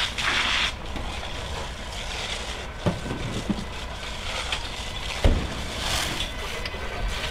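Parked fire engine's engine running steadily at the scene, with a few sharp knocks about three seconds in and again just after five seconds.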